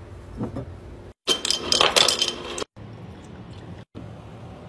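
Glass clinking and ringing: a quick cluster of sharp clinks lasting about a second and a half, as a stemmed drinking glass is handled.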